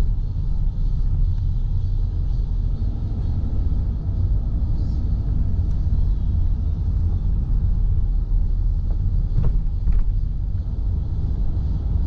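A car driving at low speed: a steady low rumble of road and engine noise, with two short clicks about half a second apart roughly nine and a half seconds in.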